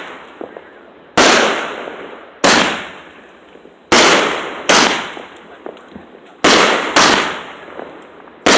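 Fireworks exploding: seven loud bangs in quick succession, each with a rumbling echo that dies away over about a second.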